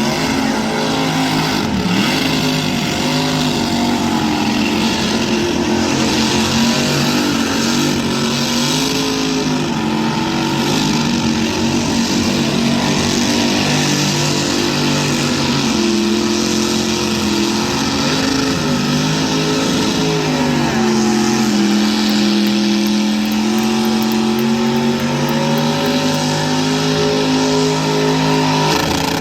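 Car engine held at high revs for a long burnout, its pitch wavering and climbing a notch about halfway through and again a little later, over a steady hiss.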